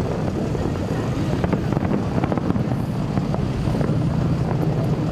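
Fireworks display: shells bursting and crackling in quick succession over a steady low rumble.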